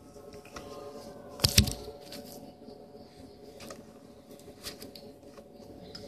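Hands handling a Zippo lighter and its cardboard presentation box: a couple of sharp knocks about a second and a half in, then scattered light clicks and rustles, over a faint steady hum.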